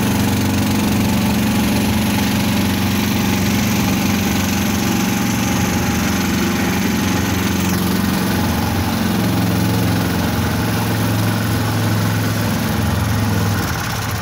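Engine of a homemade pivoting-axle all-terrain vehicle running steadily under way through a bog, heard from on board. Its note drops near the end.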